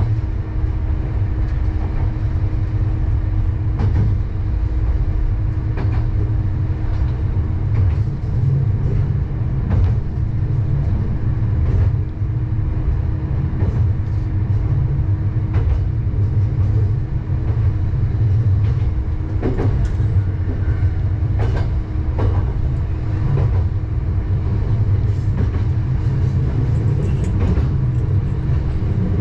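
Diesel railcar running along single track, heard from inside the cab: a steady low engine rumble with a hum, and wheels clicking over rail joints every couple of seconds.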